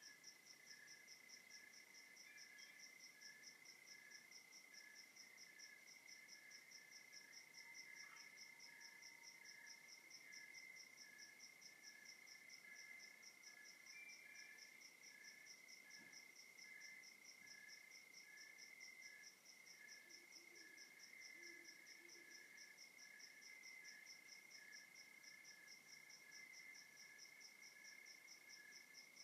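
Faint night chorus of crickets and other insects. A high chirp pulses steadily several times a second over a continuous lower trill and a slower, evenly spaced chirp.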